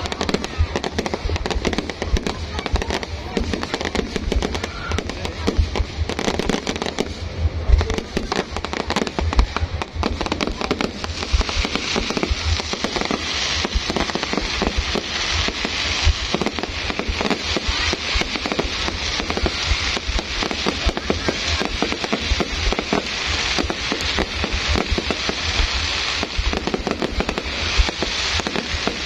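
Fireworks going off without pause: dense bangs and pops, with a crackling hiss that grows stronger after about ten seconds.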